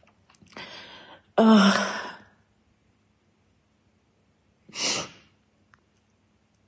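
A woman crying: a breath in, then a loud sighing sob with a brief catch of voice, and after a pause of a couple of seconds a short, sharp sniffing breath.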